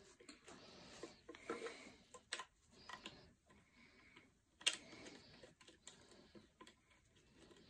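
Faint plastic clicks and rattles of a GoPro in its frame being clipped onto a selfie-stick mount, a handful of scattered clicks with the sharpest about two-thirds of the way through.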